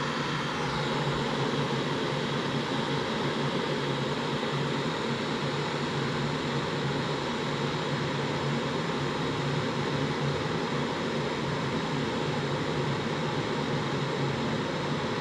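Electric kettle heating toward the boil, a steady hiss with a low hum, together with the small cooling fan in the temperature-controller box.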